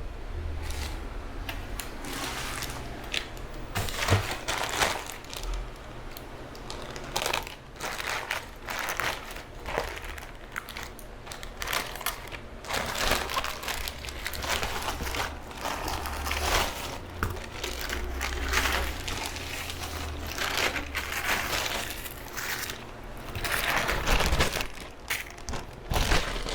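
Plastic packaging crinkling and rustling as it is handled and opened, in irregular bursts.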